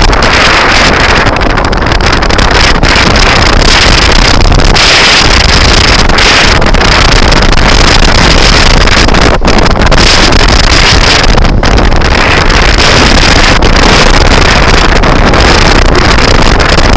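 Loud wind buffeting the microphone of a moving scooter: a steady rushing noise with a few brief dips.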